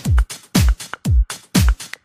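Electronic background music with a steady beat: a deep kick drum about twice a second, with lighter hits between the beats.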